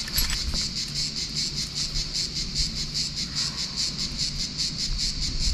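Cicadas singing in chorus: a steady, rapidly pulsing high buzz.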